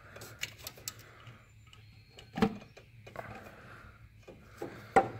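Shop rags being tucked down around an engine's valve cover: cloth rustling with scattered light clicks and two louder knocks, about two and a half seconds in and near the end, as hands brush against hoses and parts.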